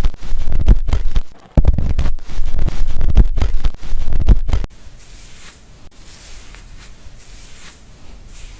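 Close-up rubbing and scratching of hands working through hair and scalp during a hair wash. It is loud and low, with many irregular strokes, and about four and a half seconds in it drops to a much softer hiss.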